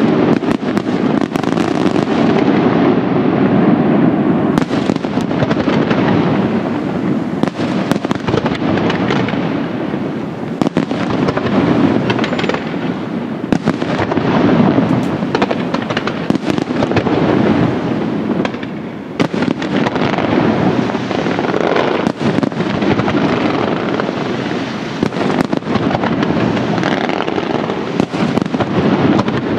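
Fireworks display: a dense, unbroken barrage of shell bursts and crackle, with many sharp bangs over it.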